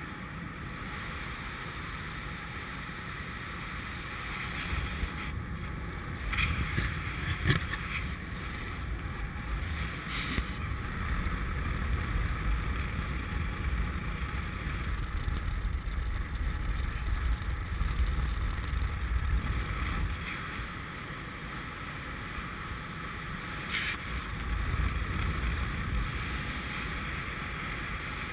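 Airflow rushing over the camera's microphone in paraglider flight. It swells louder about four seconds in, eases off a little after twenty seconds and swells again near the end, with a few brief crackles.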